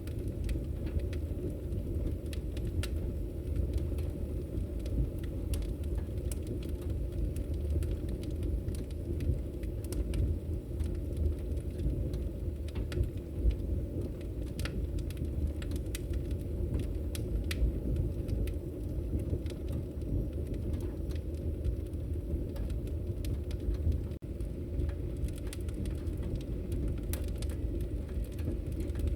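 Wood logs burning in a fireplace: a steady low rumble of flame with frequent small crackles and pops. The sound drops out for an instant about three-quarters of the way through.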